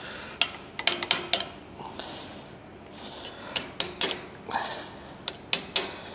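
Steel combination spanner clinking against a nut and metal fittings as it is worked round, sharp metal clinks in small groups of two or three, with handling rustle between.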